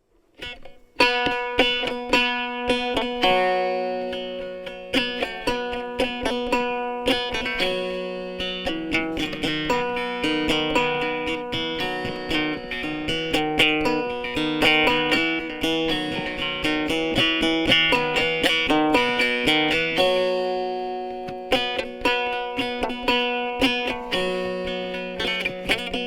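Sape, the Bornean plucked boat lute, playing a melody of quick plucked notes over a steady drone, starting about a second in.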